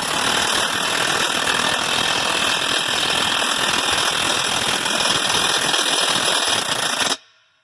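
Impact wrench hammering continuously on a tractor dual-wheel clamp nut for about seven seconds, then cutting off suddenly.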